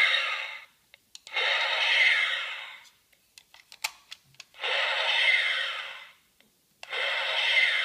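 Playmates Star Trek TNG Type 2 phaser toy's electronic firing sound effect through its small built-in speaker: a hissing zap with a falling tone inside it. One zap dies away just after the start, then three more follow, each about a second and a half long, with small clicks of the button between. The toy's light bulb is switched off.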